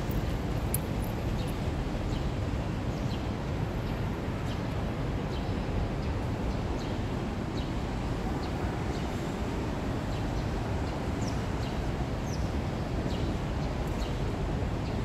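Steady low outdoor background rumble with scattered short, high bird chirps and a few quick rising calls.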